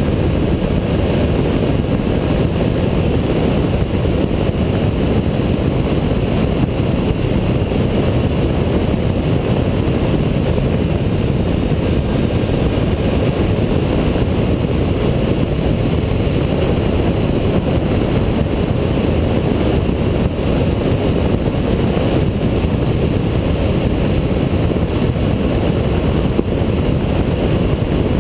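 Steady rush of wind and road noise from a Honda ST1300 motorcycle cruising at highway speed, heard through a camera mounted on its fairing, with the wind buffeting the microphone.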